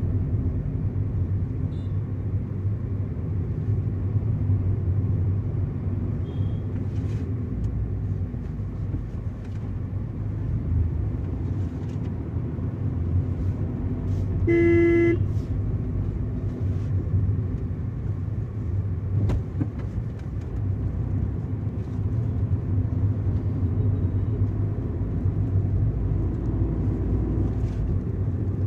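A 2019 Tata Tiago hatchback on the move, with a steady engine and road drone and faint scattered clicks and knocks from a rattle that the owner says the dealer has not managed to trace. A vehicle horn honks once, briefly, about halfway through.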